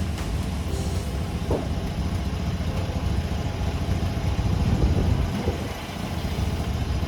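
Portable bandsaw sawmill running, its engine droning steadily.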